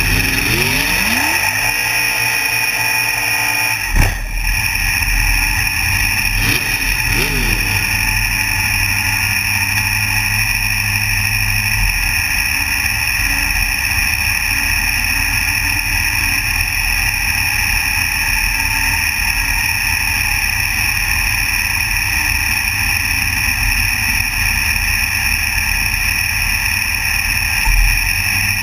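Super Comp dragster's V8 engine idling, heard up close from the car, with short throttle blips about a second in and again around six to seven seconds in. A single sharp crack stands out about four seconds in.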